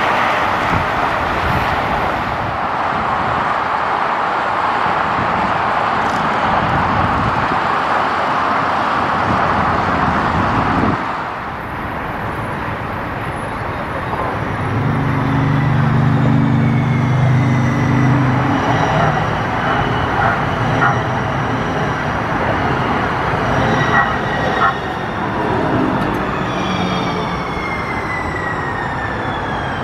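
Light-rail trolley train running on the track, a steady rushing noise. After a cut about eleven seconds in, a low engine hum comes and goes, followed by high electric whines that slowly fall in pitch near the end.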